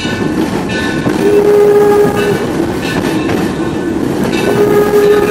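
Train pulled by an 1870s steam locomotive, heard from aboard: a steady rolling rumble and clatter, with a clear pitched tone held for about a second, twice, and shorter high ringing tones in between.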